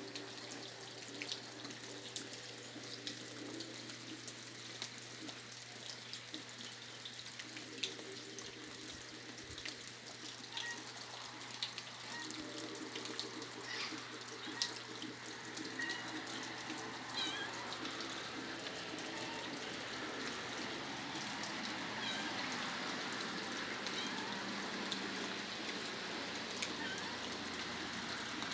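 Steady rain falling, an even hiss with scattered sharp ticks of drops striking; it grows a little louder in the second half.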